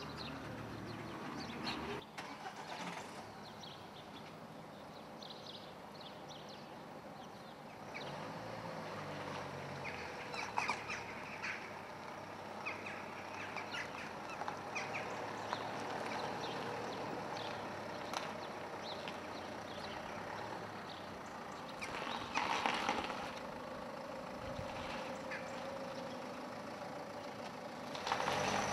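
A few short chirps from a small bird, then town street ambience with motor traffic passing. The loudest vehicle passes swell up twice, the second near the end.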